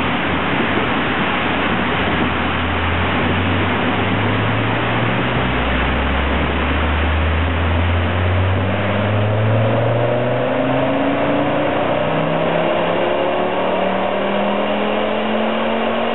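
Ford Focus ST fitted with a Focus RS turbocharged 2.5-litre five-cylinder engine, held under full load on a rolling road dyno. Its engine note climbs slowly and steadily in pitch as the revs rise through a power run.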